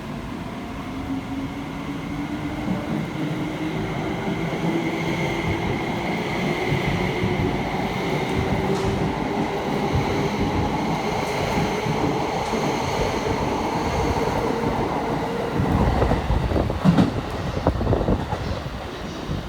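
E261 series electric multiple unit pulling out of the station, its traction motor whine climbing slowly in pitch as it accelerates under the rumble of the train. Near the end come heavier low rumbling and knocks as the cars roll past.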